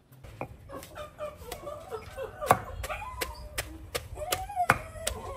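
A wooden pestle pounding in a stone mortar, knocking about twice a second, with chickens clucking close by.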